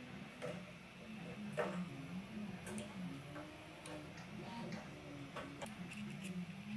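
Ratcheting T-handle tap wrench clicking as an M4 hand tap is worked back and forth to cut threads in a thin metal panel: light, irregular ticks, with a faint low wavering hum underneath.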